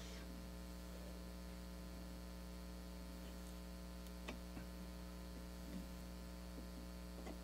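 Steady low electrical mains hum, with a few faint light ticks, the clearest about four seconds in.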